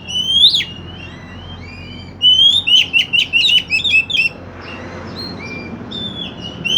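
Oriental magpie-robin (kacer) singing: loud whistled notes and slides, a quick phrase at the start, a fast run of chirps from about two seconds in, and a new phrase beginning at the end.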